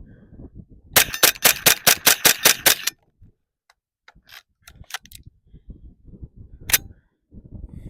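HK MP5 .22LR rimfire firing a rapid string of about ten shots, roughly five a second, that stops short. Light metallic clicks follow, then one more single shot near the end. The stoppage fits a rimfire dud: the firing pin struck a round that didn't go off, which the shooter puts down to the ammo.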